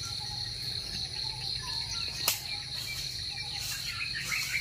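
Steady high-pitched insect drone, a continuous trill, with faint bird chirps and one sharp snap about halfway through.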